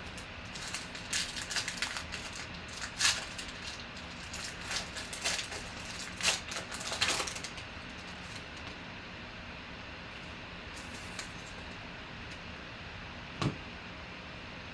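Foil wrapper of a trading-card pack crinkling and tearing as it is ripped open, a run of irregular crackles for about seven seconds. Near the end, a single sharp tap as the stack of cards is set down on the table.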